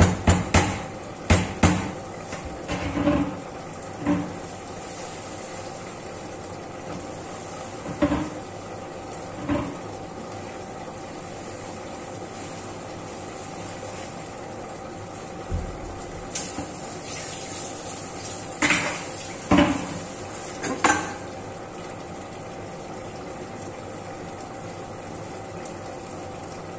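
Kitchenware knocking and clinking: a quick run of sharp knocks at the start, then a few single knocks spaced out, and a louder cluster about two thirds of the way through, over a steady hum.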